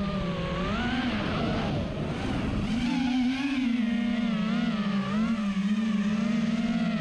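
FPV racing quadcopter's motors and propellers whining, the pitch rising and falling with the throttle as it banks through the course.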